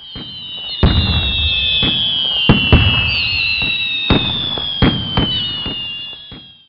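Fireworks, likely a sound effect: high whistles sliding slowly down in pitch over a crackling hiss, with about half a dozen sharp bangs. It fades in at the start and fades out near the end.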